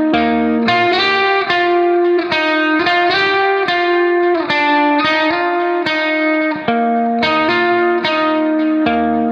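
Background music: an instrumental guitar melody of plucked notes, about three a second.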